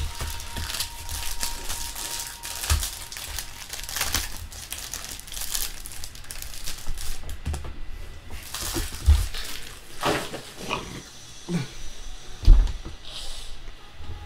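Sports card packs being opened and handled: wrappers crinkling and tearing and cards shuffled, with a few dull thumps, the loudest near the end.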